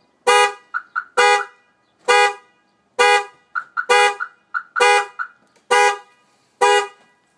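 Chevy Tahoe car alarm going off after being triggered by a knock: the horn honks in a steady rhythm, about one loud honk a second, eight in all, with short higher beeps between some honks.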